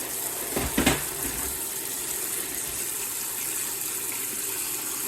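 Hot water pouring steadily into the tub of a small fold-down portable washing machine, with a couple of short knocks just under a second in.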